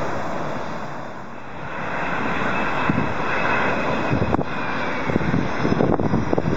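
Boeing 737 jet airliner on low final approach: a steady rush and rumble of jet engines that dips briefly about a second in, then grows louder as the plane comes closer, with uneven low rumbling in the second half.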